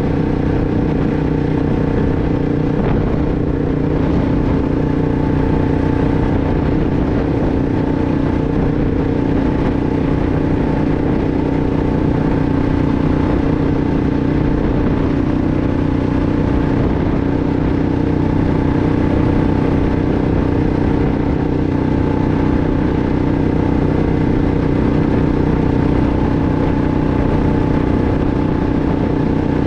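2006 Arctic Cat 500 ATV's single-cylinder four-stroke engine running at a steady pitch, with no revving.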